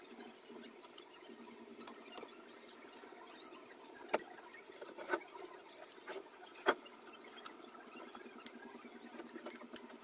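A steady low hum with a few sharp taps or clicks about a second apart in the middle, the last one the loudest.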